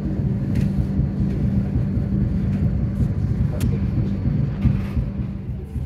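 Steady low rumble and hum of a moving vehicle, heard from on board, with a few faint clicks.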